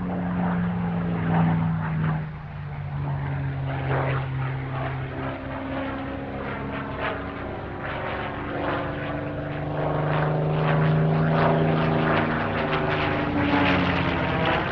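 Spitfire Mk IX's Rolls-Royce Merlin V12 engine on a flypast. The engine note drops in pitch as the aircraft passes about two seconds in, fades, then grows loud again on the next pass towards the end.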